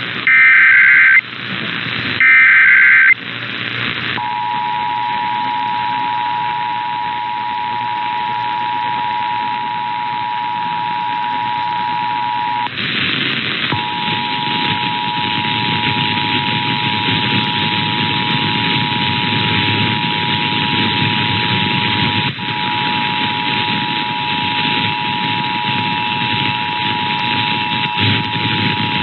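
Emergency Alert System test over radio: two short bursts of the warbling SAME data header, then the steady two-tone EAS attention signal (853 and 960 Hz together), which breaks off for about a second near the middle and resumes. A constant hiss of radio reception noise lies under it all.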